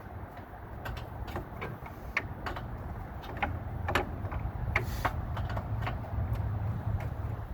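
Irregular clicks and knocks of hand tools against metal as parts are worked on, over a steady low rumble of wind on the microphone.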